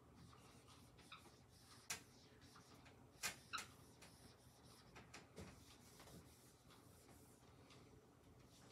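Faint, scattered squeaks and taps of a dry-erase marker on a whiteboard, a few short strokes spread through the first half and little after that.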